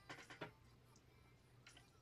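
Near silence with a quick run of faint clicks in the first half second, then only a low steady hum.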